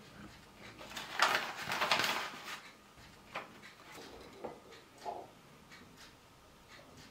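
A burst of rustling for about a second and a half, then a few light clicks and taps as eggs and a small ceramic bowl are handled on a wooden table.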